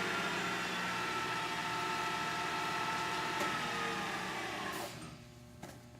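Oxford 949VS milling machine's 3 hp variable-speed head running steadily, its pitch sinking slightly, then winding down and stopping about five seconds in. A couple of faint clicks follow.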